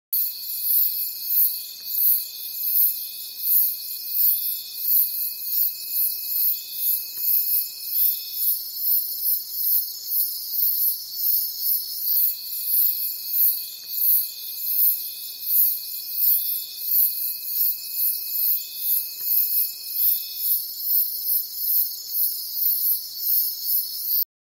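Night insect chorus: a steady high buzz with a pulsing chirp about twice a second, and a thin high tone that drops out for a few seconds twice. It stops abruptly near the end.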